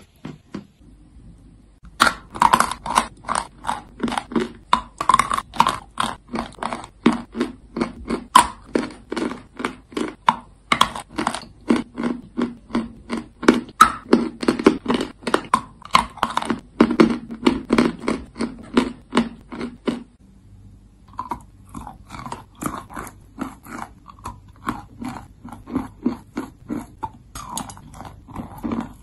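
A person biting and chewing hard chalky lumps, crunching at about three a second, with a short lull near the start and another about two-thirds of the way through.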